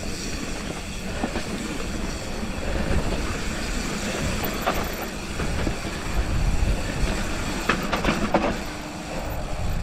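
Mountain bike rolling fast down a dirt trail: a steady rush of tyre and wind noise and a rattling chain and frame, with a few sharp clacks as it hits bumps.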